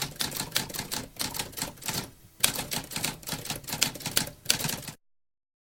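Typewriter keys clacking in a rapid, uneven run, with a brief pause about two seconds in, then stopping abruptly at about five seconds.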